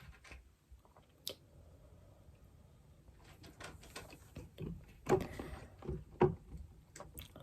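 Handling noises: a sharp click about a second in, then a run of short knocks and rustles from about three seconds, the loudest two knocks around five and six seconds.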